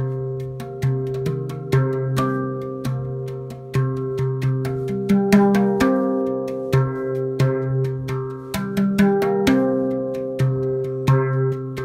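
A Spacedrum, a steel handpan tuned to the Deep Sky scale (C3, Eb3, G3, Bb3, C4, D4, Eb4, F4), is being played by hand. Notes are struck roughly every half second and each one rings on into the next, with the low central note coming back again and again.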